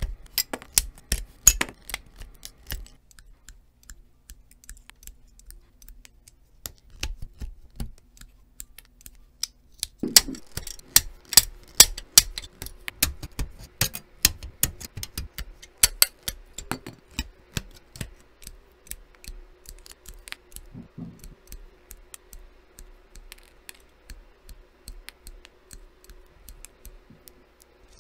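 Side-cutting hobby nippers snipping plastic model-kit parts off their sprues: a series of sharp clicks and snips, coming in clusters, densest in the middle and thinning out towards the end.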